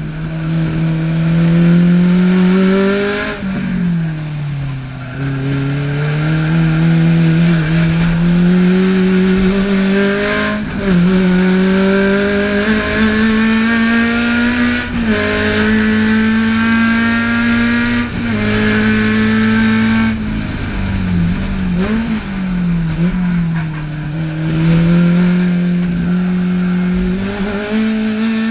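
Tuned Alfa Romeo twin-cam four-cylinder engine heard from inside the car's cabin at full racing pace. Its pitch climbs steadily in each gear and drops sharply at each gear change. Around two-thirds of the way through come a few quick up-and-down revs before it pulls again.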